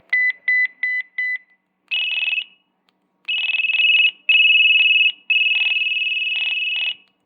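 An LG VX9800 flip phone's speaker playing a preloaded electronic alert tone: four quick high beeps, then a longer beep, then three long buzzy tones, the last one the longest.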